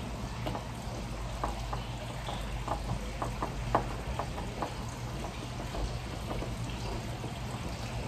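Light, irregular clicks and taps of small hardware being handled and fitted against a door frame while a video doorbell is mounted, thickest about halfway through, over a steady low hum.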